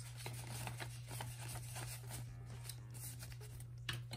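Paper banknotes and a paper envelope rustling and crinkling in short bursts as cash is handled and tucked in, over a low steady hum.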